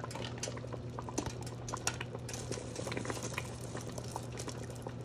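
A pot of tomato sauce boiling with pasta cooking in it, a dense run of small bubbles popping.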